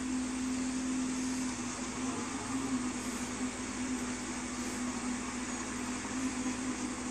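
Engine of an aquatic weed harvester running with a steady hum while it cuts lake weed.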